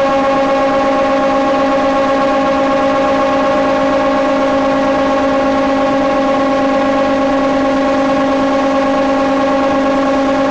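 Four-sided timber moulder running with a loud, steady, unchanging hum.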